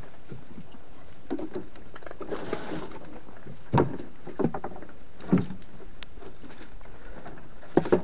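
A netted fish trap with a wooden frame being handled in a wooden canoe: irregular knocks and thuds of the frame against the boat's planks over a steady background hiss, with one sharp click about six seconds in.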